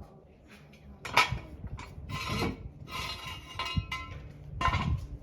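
Metal car jack being pulled out from under the car: a sharp clank about a second in, scraping with a metallic ring, and another clank near the end.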